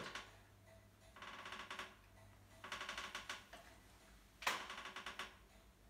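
A chair creaking in three short bursts of rapid crackly clicks, about one and a half seconds apart, as the seated person's weight shifts with each alternating knee push.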